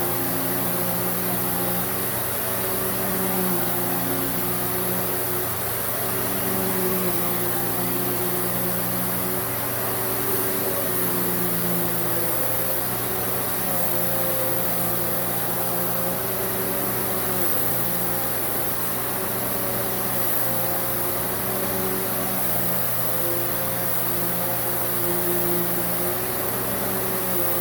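Hoover Hushtone CH54113 commercial upright vacuum cleaner running in its boost (high-speed) mode: a steady motor hum whose pitch wavers slightly, not too loud.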